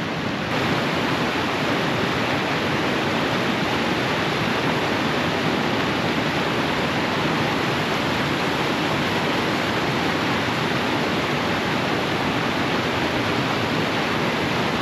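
Rushing river water, a steady even hiss.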